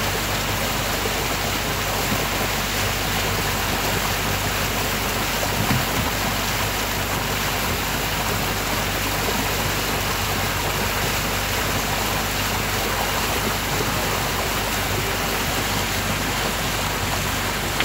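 Steady rushing of water and wind from a moving motorboat, with a low engine hum underneath.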